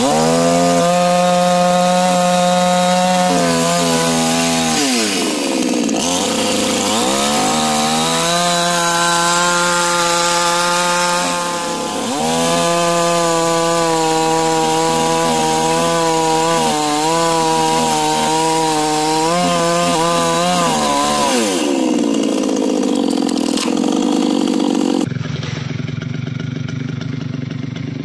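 Two-stroke chainsaw cutting through a tree trunk, the engine revving high under throttle. The revs drop and climb back twice, then fall away about three-quarters of the way through, leaving a rough noise.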